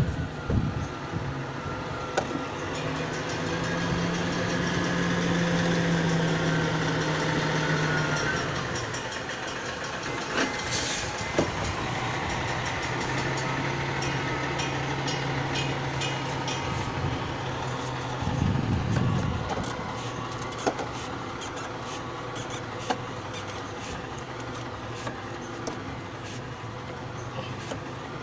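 A vehicle engine running in the background, louder for a few seconds near the start and easing off, with a few light clicks and knocks.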